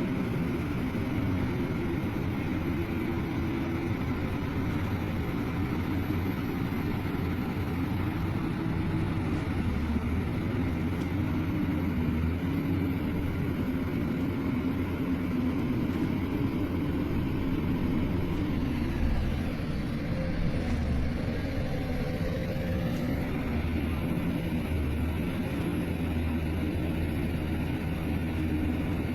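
Heavy diesel engine of earthmoving machinery running steadily under work, with a continuous low hum; about twenty seconds in the engine note dips and then climbs again.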